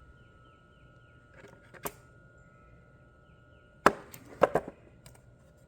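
Sharp clicks of a normally closed push-button switch, set in a plastic steering-column cover, being pressed: two light clicks about a second and a half in, then a louder group of clicks around four seconds in.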